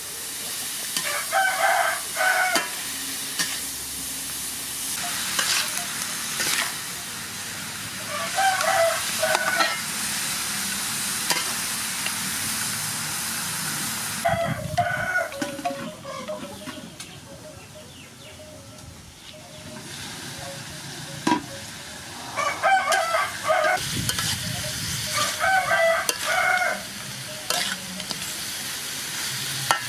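Chicken and shredded ginger sizzling in a hot aluminium wok as a metal spatula stirs them, with a rooster crowing several times; the sizzle dips for a few seconds about halfway through.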